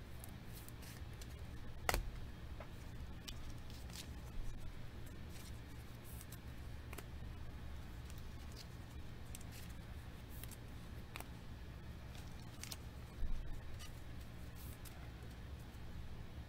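Trading cards being handled and slid into clear plastic sleeves and top loaders: faint scattered clicks and rustles of plastic and card, the sharpest about 2 s and 13 s in, over a low steady hum.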